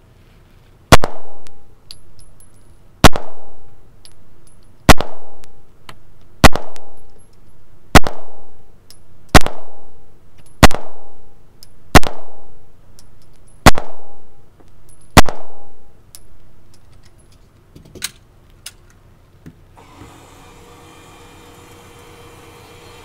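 Taurus TH9 9mm pistol fired ten times in slow, steady succession, one shot every one and a half to two seconds, each with a short echo off the indoor range.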